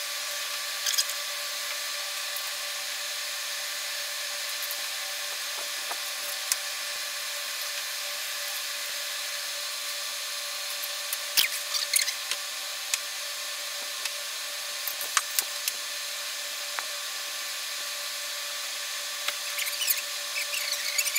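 Pencil and metal straightedge working on a drawing board: scattered sharp clicks and taps and short scratchy strokes over a steady hiss, busier in the second half.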